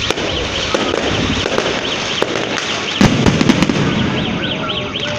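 Aerial fireworks bursting, with pops and crackles throughout. The loudest bang comes about three seconds in and is followed by a quick run of sharp cracks. A steady, repeating high chirp runs underneath.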